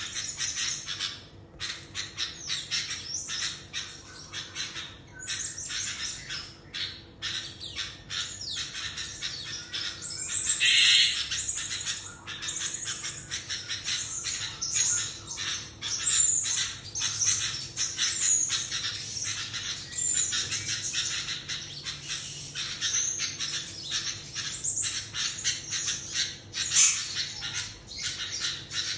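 Sooty-headed bulbul (kutilang) giving a fast, nearly unbroken run of calls that at moments sound like a duck, with a louder stretch about ten seconds in.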